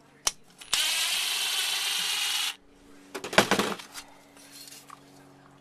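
Cordless drill or driver running steadily for about two seconds, backing out a screw, and stopping suddenly, followed by a short clatter.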